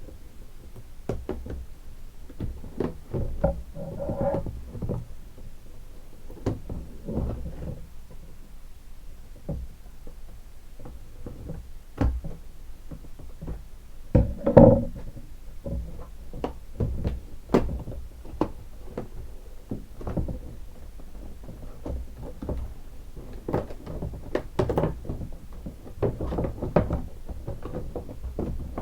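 A taped cardboard-and-plastic doll box being worked open by hand: scattered knocks, taps and rustles of packaging. One louder spell of handling comes about halfway through.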